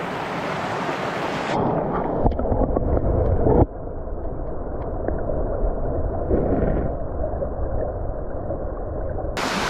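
Small mountain stream running over rocks, heard at the surface, then muffled to a low rush about a second and a half in as the microphone goes under water, with a low rumble and a few knocks for a second or so. The clear, full sound of the stream returns near the end as the microphone comes back up.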